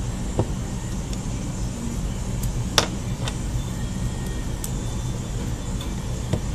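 Steady low rumble with a few light clicks from a small screwdriver and tiny screws, removing the screws from an HTC Evo 4G's back housing. The sharpest click comes about three seconds in.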